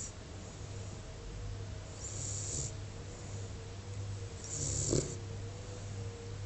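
A sleeping Bullmastiff snoring, a hissing snore breath about every two and a half seconds. The second snore, about five seconds in, ends in a short sharp snort.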